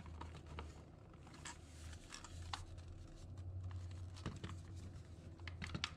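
Light clicks and rustling of hands handling the opened plastic case of a handheld radio transmitter, over a low steady hum.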